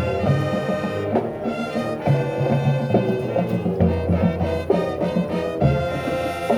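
High school marching band playing: brass chords over sustained low notes that change every second or two.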